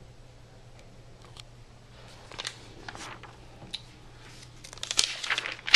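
Paper rustling as a printed sheet and an open textbook are handled: a few short, scattered rustles, then a busier run of rustles near the end that finishes in one sharp crinkle. A faint steady low hum sits underneath.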